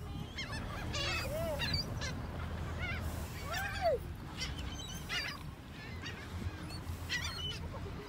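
A flock of gulls calling overhead as they are fed: many short squawking calls, one after another and overlapping, each rising then falling in pitch, the loudest about three and a half seconds in.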